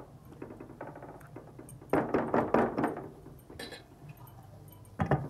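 Plastic spatula stirring fish pieces through a thick masala in a nonstick kadai, knocking and scraping against the pan: a cluster of quick knocks about two seconds in and another sharp knock near the end.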